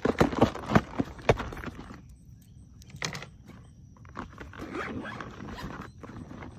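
Fishing reel and tackle being handled in a kayak: a quick run of sharp clicks and knocks in the first two seconds, a short burst of clicks about three seconds in, then soft rustling.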